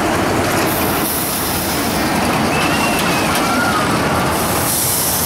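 Caterpillar-themed children's roller coaster train rolling along its steel track: a steady rolling noise, with a hiss from the wheels that comes in twice.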